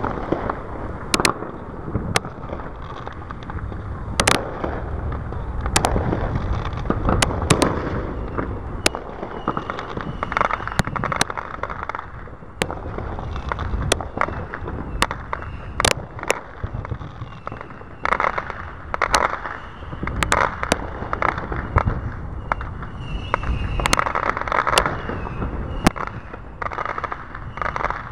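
Aerial fireworks going off: an irregular run of sharp bangs and reports over continuous crackling.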